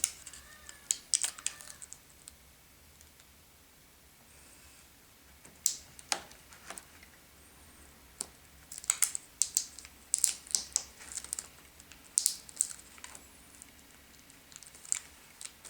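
Small sharp clicks and taps of fingers working a ribbon cable into the connector on the back of a laptop LCD panel. They come in scattered clusters with quiet pauses between.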